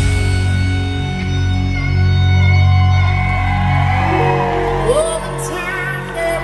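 Live band music: after a loud drum-and-guitar passage, a long held chord rings over a sustained bass. The bass drops out about four seconds in, and short sliding vocal sounds come in near the end.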